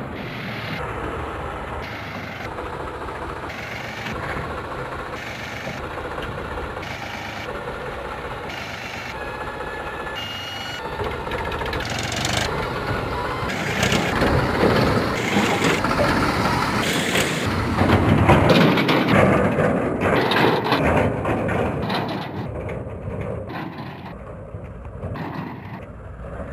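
Powertrac 439 tractor's diesel engine running steadily while its hydraulic tipping trailer dumps sand. The engine gets louder about halfway through as the tractor works through the loose sand, then fades as it drives away.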